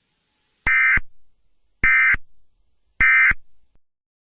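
Emergency Alert System end-of-message data signal: three short, identical bursts of warbling digital tone about a second apart, the burst trio that closes an EAS broadcast.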